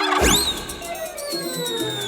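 Cartoon soundtrack music with comic sound effects: a quick swooping sound and a deep thud at the start, then a long, slowly falling whistle.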